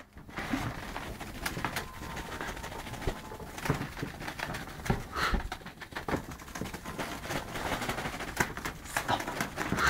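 Two cats playing on a mattress: irregular scuffling, scratching and clicking, with a couple of short chirping calls, one about halfway through and one at the end.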